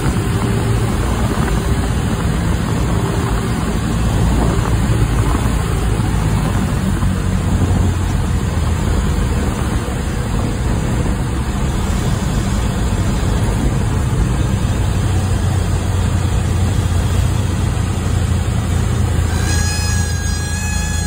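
Cabin noise of a Cessna 172SP landing: its four-cylinder Lycoming IO-360 engine and propeller running steadily under a loud rush of airflow, heard from inside the cockpit. Near the end, a few faint steady tones come in over it.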